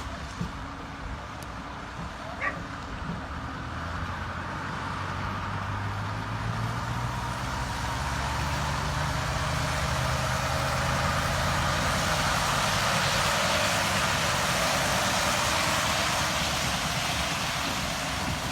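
Heavy diesel vehicle running and moving, its engine hum and road noise growing gradually louder as it approaches, then easing slightly near the end.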